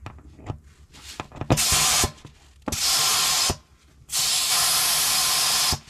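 Compressed air hissing in three bursts from an air chuck held on the valve stem of a tractor inner tube: a short one about a second and a half in, a longer one near the middle, and the longest, almost two seconds, near the end.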